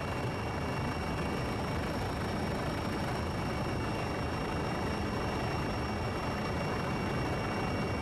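Helicopter noise recorded aboard the aircraft: a steady, dense rush of rotor and engine noise with a thin, steady high whine above it.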